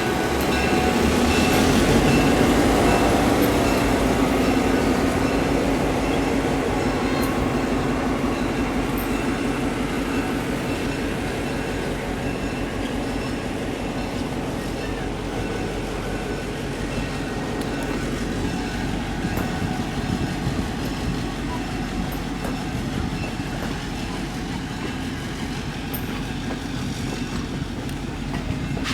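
A train running: a steady rumble of wheels and machinery on the rails, loudest a couple of seconds in and slowly easing off.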